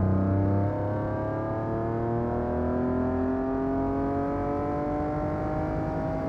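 BMW E46 M3's S54 straight-six with a Supersprint exhaust, pulling steadily in gear, its pitch rising slowly as the revs climb.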